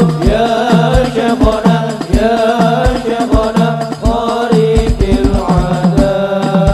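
A group of men sings an Arabic sholawat in unison through microphones, in long, drawn-out melodic lines. A steady beat of deep drum strikes runs underneath.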